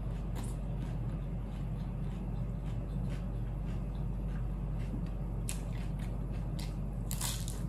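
Close-up mouth sounds of someone chewing food: faint scattered smacks and clicks over a steady low hum, with a brief crunchy bite about seven seconds in, as a cucumber slice is bitten.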